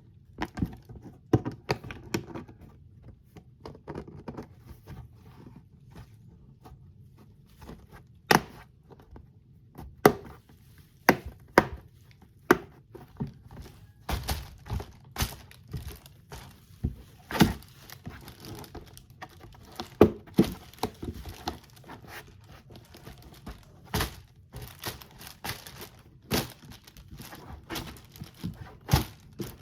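A hard plastic box being handled: irregular sharp knocks and clicks of plastic parts, with some rustling and crinkling.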